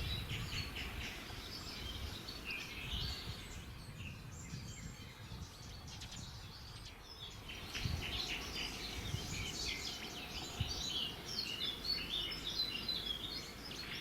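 Small birds chirping, the calls thinning out midway and growing busier again about eight seconds in, over a low rumble.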